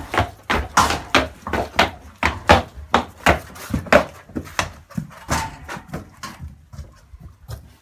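Draft horses' hooves clopping on a hard stable floor as several horses walk in: a quick, irregular run of knocks that thins out and fades toward the end.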